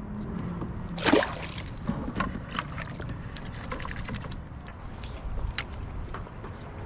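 Scattered light clicks and knocks of handling on a kayak, with one louder brief burst about a second in, over steady low wind and water noise.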